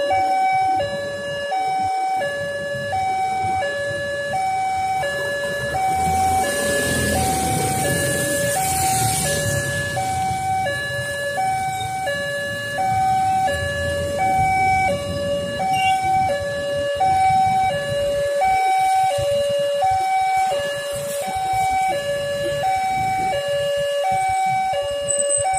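Railway level-crossing warning alarm sounding, a lower and a higher electronic tone alternating about once a second without a break: the signal that a train is coming and the barriers are closing. Road traffic noise swells for a few seconds partway through.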